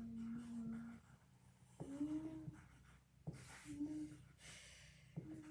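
Faint drawing sounds on cardboard: scratchy marker strokes, with a held low tone at the start and three short tones later, each starting with a tap.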